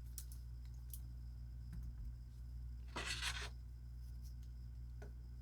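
Faint handling of a wristwatch on a leather strap as it is put on the wrist: a few small clicks and one brief rub about three seconds in, over a steady low hum.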